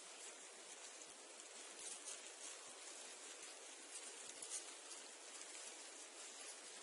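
Reeds and sedge rustling in a light wind: a soft, steady hiss of leaves and stems with brief, crisper flickers of rustle now and then.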